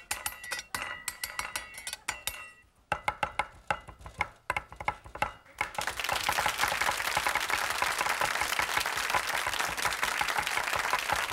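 Cleaver chopping beef on a wooden cutting board. At first there are separate chops; about six seconds in they give way to a fast, continuous patter of mincing.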